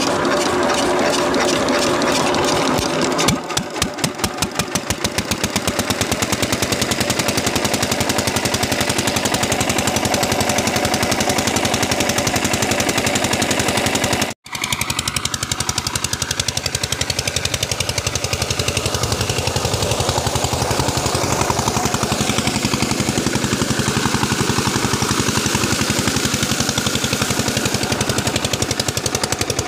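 Single-cylinder stationary diesel engine running an irrigation water pump with a loud, fast, even beat, and water gushing from the pump's discharge pipe. The sound cuts out for an instant about halfway.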